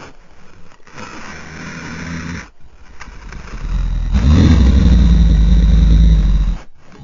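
Custom-made dinosaur roar sound effect for a Vastatosaurus rex: a rough low growl, then about four seconds in a loud, deep roar that holds for over two seconds and cuts off.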